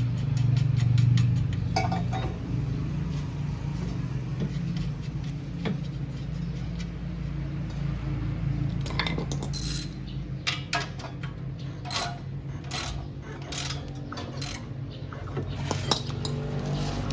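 Metal tools clinking and knocking against steel suspension parts during reassembly of the front hub, with a quick run of even ticks at the start like a ratchet and a denser cluster of clinks in the second half, over a steady low hum.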